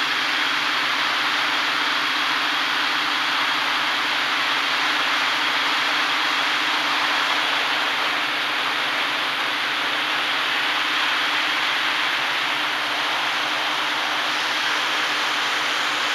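Hexacopter's electric motors and propellers running steadily in flight, heard up close from a camera on the frame: a rushing hiss with a steady high whine and a lower hum.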